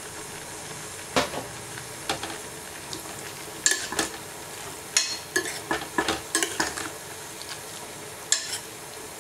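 Metal spoon stirring thick vegetable-and-lentil kootu in a stainless steel pot, scraping and clinking against the pot, busiest in the middle, over a steady low hiss from the cooking pot.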